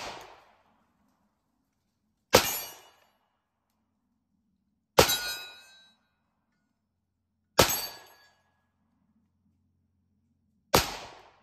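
Five 9mm pistol shots from a Rost Martin RM1C, about two and a half seconds apart, each with the ring of the bullet striking a steel target. The last shot, near the end, empties the magazine and the slide locks back.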